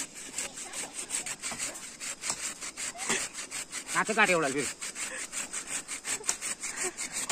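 Hand saw cutting through firewood in quick, steady strokes, with a brief warbling call about four seconds in.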